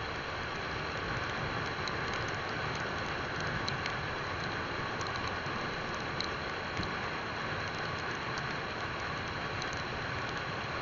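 Steady rushing wind and road noise from a moving motorcycle, with a few faint ticks.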